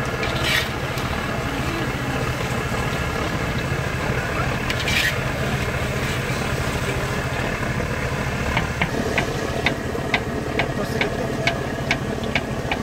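Potato chips deep-frying in a steel pot of oil over a steady low hum, a wire skimmer stirring them; over the last four seconds the metal skimmer clinks against the pot about twice a second as the chips are lifted out.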